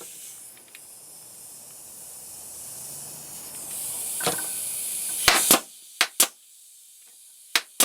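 Compressed air hissing from a leak at a pneumatic crown stapler and its air line, growing louder and then cutting off suddenly. It is followed by three pairs of sharp clicks.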